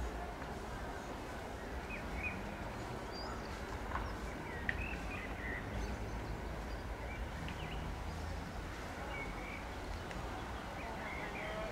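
Outdoor ambience: a steady low rumble with small birds chirping briefly now and then.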